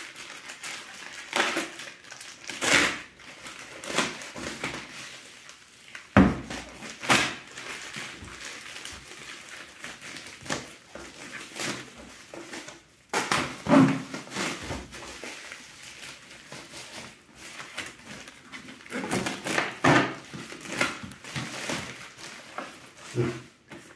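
A plastic courier mailer bag being slit open with a blade and torn apart, the plastic crinkling and rustling with irregular scrapes and sharp crackles as a cardboard box is pulled out of it.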